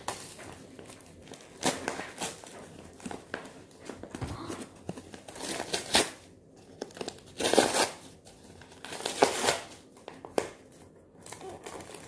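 Light-green tissue wrapping paper crinkling and tearing as a present is unwrapped by hand, in irregular rustling bursts, the loudest about seven and a half and nine seconds in.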